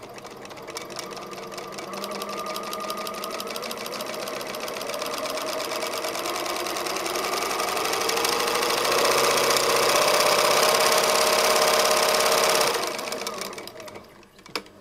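Bernina 910 Electronic sewing machine running, its speed raised slowly from a low stitch rate up to its maximum of about 1100 stitches a minute, the stitching rhythm quickening and growing louder. It holds at full speed for about three seconds, then winds down and stops shortly before the end.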